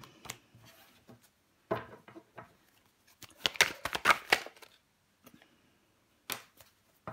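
A deck of tarot cards being shuffled by hand, a quick dense run of card flicks and snaps about three to four seconds in, with a few single card clicks before and after.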